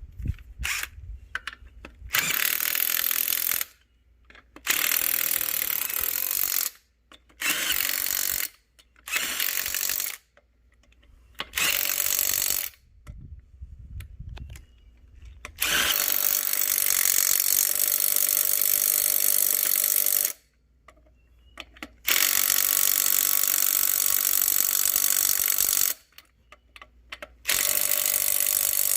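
Power tool driving the wheel's lug bolts on, in about eight runs of one to five seconds each, the longest ones in the second half.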